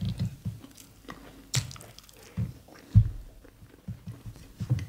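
Close-miked chewing of ewa agoyin (mashed beans), with wet mouth clicks and smacks and a low thump about three seconds in.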